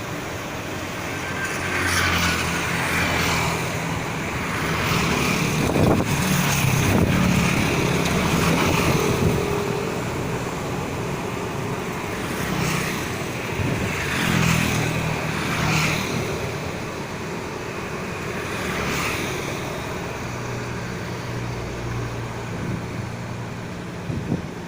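Road traffic passing close by: several vehicles go past one after another, each engine swelling and fading, the loudest about six seconds in.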